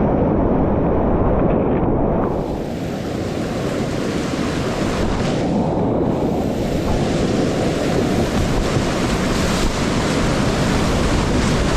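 Whitewater rushing steadily on the high-running South Fork of the American River, with wind buffeting the microphone. The rush is dull for about the first two seconds, then opens into a brighter hiss.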